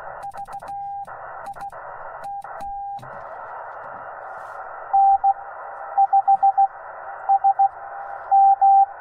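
Morse code tones from a Yaesu FT-891 HF transceiver. For the first three seconds the straight-keyed CW sidetone alternates with short bursts of receiver hiss between the dots and dashes. After that the receiver hiss runs steadily, and from about five seconds in a louder Morse signal from another station comes in on the same frequency, interfering with the operator's calls.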